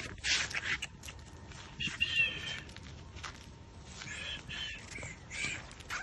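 A few short, high animal calls: one about two seconds in, more around four seconds, and another near the end, with scattered light clicks in between.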